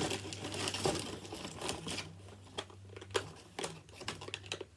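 Hands handling a plastic toy gun magazine: rustling and crinkling for about two seconds, then a handful of sharp separate plastic clicks.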